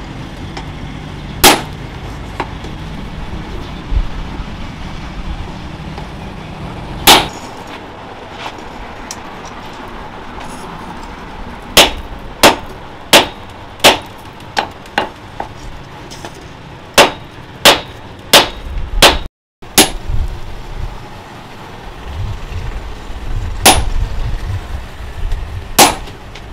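Blacksmith's hand hammer striking red-hot steel bar on a steel post anvil, each blow a sharp clang. A few spaced blows at first, then a quicker run of about a dozen strikes in the middle, then a few more near the end.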